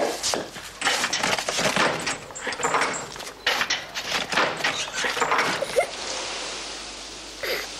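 Rapid knocking and clattering of a heavy rubber-tyred trailer wheel being rolled and handled on hard ground. About six seconds in it gives way to a steady hiss.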